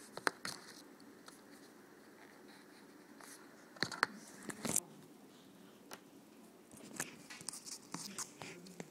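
Drawing strokes on paper: short, scratchy strokes of a drawing tool in irregular clusters, the loudest around four to five seconds in.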